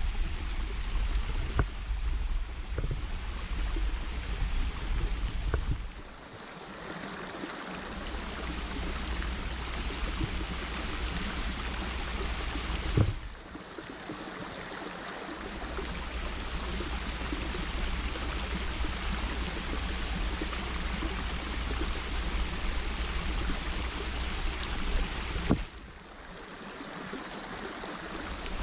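Water of a small branching waterfall and its stream rushing steadily over bedrock, a constant hiss that briefly drops in level three times. A single sharp tap sounds about 13 seconds in.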